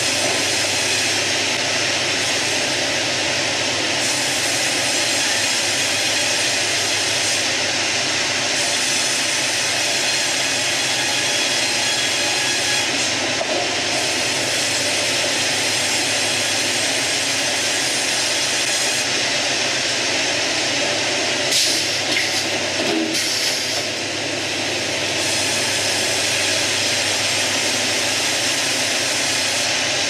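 Band sawmill headrig running: the band headsaw and Hurdle log carriage cutting a squared cant, a loud, steady mechanical rush with a few brief knocks about two-thirds of the way through.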